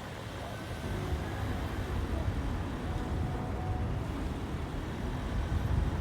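Low, steady rumble of a moving car heard from inside, engine and tyre road noise, getting a little louder about a second in.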